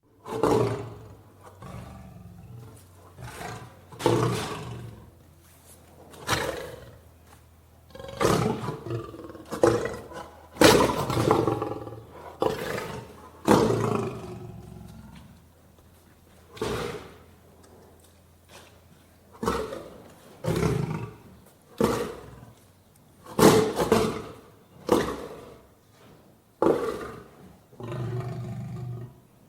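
Lion roaring: a long series of low roars and grunts, each one starting suddenly and fading, coming every second or two, loudest in the middle stretch.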